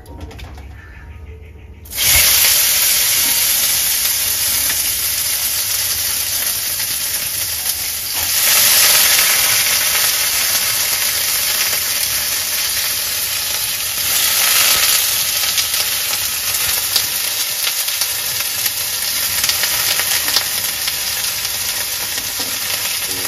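Wet vegetables, just lifted from water, hitting hot oil in a steel kadai and sizzling loudly. The sizzle starts suddenly about two seconds in and swells again twice.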